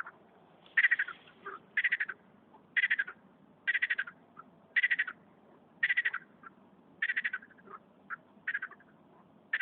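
A frog croaking over and over, about once a second, each call a short rapid rattle.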